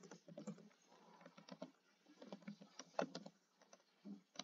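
Computer keyboard typing: a faint, irregular run of key clicks, with one louder keystroke about three seconds in.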